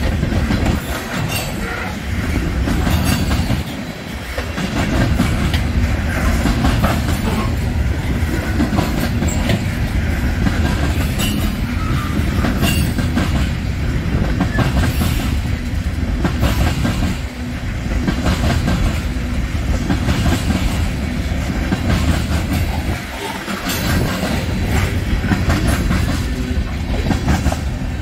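Norfolk Southern freight train of tank cars and covered hoppers rolling past at close range: a steady rumble of wheels on rail, with a clickety-clack of wheels over the rails.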